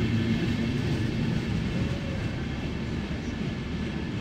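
Red ÖBB Railjet train running along the platform of an underground station, a steady low rumble with a few low tones that eases slightly toward the end.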